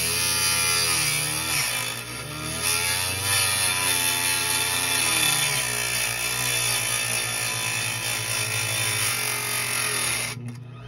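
Small hobby table saw's motor running as it cuts styrene plastic, its pitch wavering as the melting plastic drags on the blade and slows it. It cuts off near the end.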